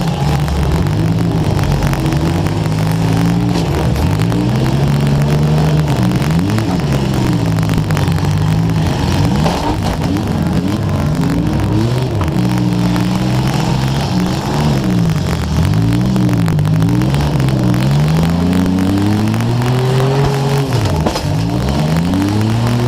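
Demolition derby car engine revving up and dropping back again and again, at several pitches, as the car drives hard. Crackling static from a wet camera microphone runs under it.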